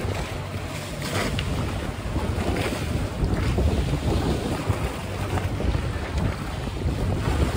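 Wind buffeting the microphone over the rush of sea water along a sailing yacht's hull, rising and falling unevenly.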